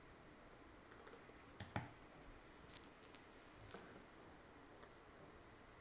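Faint clicking of a computer keyboard and mouse: a quick run of key presses about a second in, then single clicks every second or so, over low room tone.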